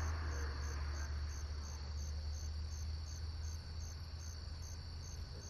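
Insects chirping at the launch site, a steady high trill with a pulse about twice a second, over a low steady hum.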